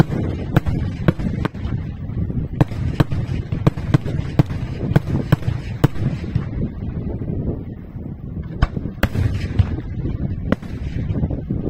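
Daytime aerial fireworks: a rapid string of sharp bangs from shells bursting overhead, about three a second, over a continuous low rumble. After about six seconds the bangs thin out to a few scattered ones.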